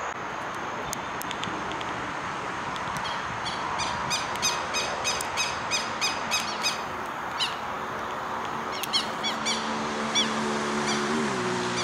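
A bird calling repeatedly, sharp high notes about three a second, then a looser series of quick downward-slurred calls, over a steady background rush. A low droning hum comes in partway through and drops in pitch near the end.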